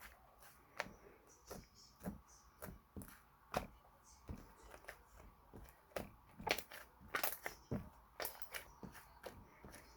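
Chocolate-jam slime being pressed and poked by hand, giving irregular small sticky clicks and pops, busiest a few seconds in and again past the middle.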